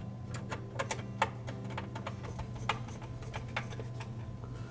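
Light irregular clicks and ticks of a Torx screwdriver turning and seating screws into a plastic dishwasher pump separator, a few a second, over a low steady hum.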